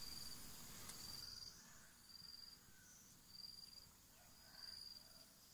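An insect calling in short, high-pitched trills, about five of them, one roughly every second, over a faint background hiss.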